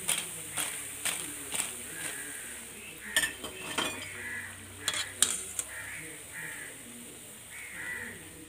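Bondas frying in hot oil in a kadai, with a steady sizzle. A metal ladle clinks and scrapes against the pan in repeated sharp clicks while the browned bondas are lifted out.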